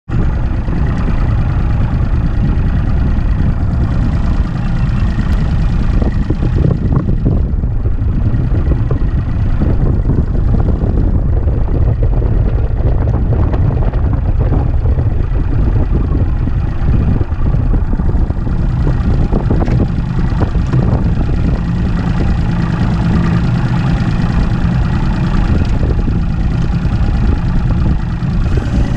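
Mercury Optimax 200 HP two-stroke outboard running steadily: a loud, even engine drone with no change in pitch.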